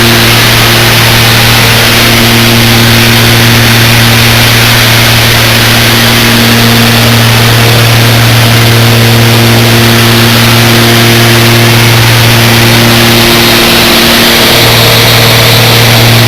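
A loud, steady engine drone with a constant low hum that holds the same pitch throughout.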